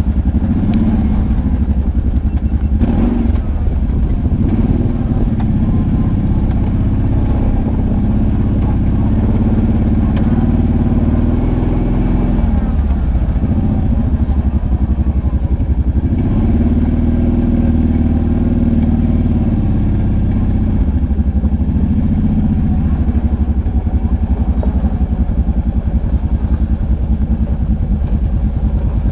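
ATV engine running at trail speed, its pitch rising and falling with the throttle. A short clatter comes about three seconds in.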